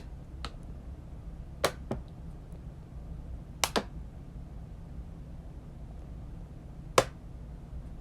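A steady low rumble with about seven sharp clicks scattered through it, two of them in quick pairs and the loudest near the end; the sound of a microphone held close against the body and shifting on skin or clothing.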